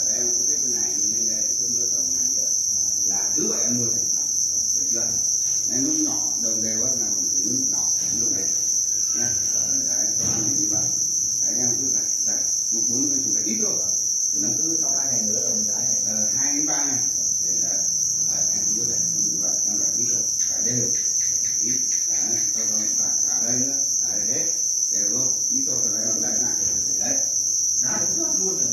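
A dense chorus of many farmed black crickets chirping together, merging into one continuous high-pitched trill that never lets up, with faint voices talking in the background.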